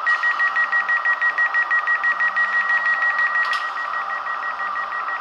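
ÖBB 4020 S-Bahn door warning beeps played by an ESU LokSound 5 sound decoder through a model train's small speaker: a rapid run of high beeps, about seven a second, part of the door-opening sound on the first door release. A steady hum runs underneath, and there is a single click about three and a half seconds in.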